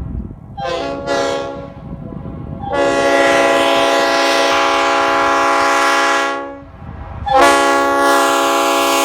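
Leslie RS5T five-chime air horn sounding its chord, with the 44 and 55 bells reversed (RRO configuration). It gives two short toots, then a long blast of about three and a half seconds, then another long blast that starts near the end.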